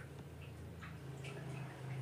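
Kitchen knife scoring cuttlefish flesh on a plastic cutting board: a few light, irregular ticks as the blade meets the board, over a low steady hum.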